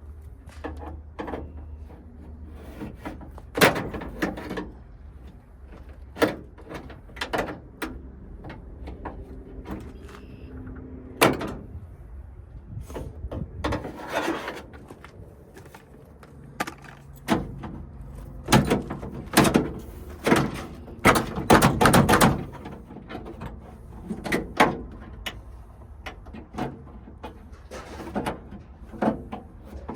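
Hand tools and metal lock parts being worked on a van's side door: irregular clicks, knocks and rattles, with a busier run of knocks about two-thirds of the way through.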